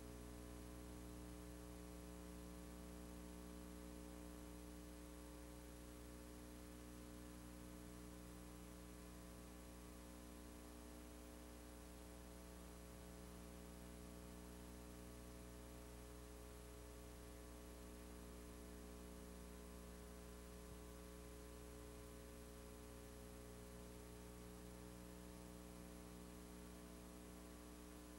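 Near silence: a faint, steady mains hum with a light hiss, unchanging throughout, from the blank end of a VHS tape after the program has finished.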